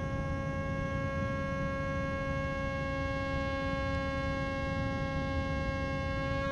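A single held droning note at a steady pitch, rich in overtones, from an improvised battery-powered instrument.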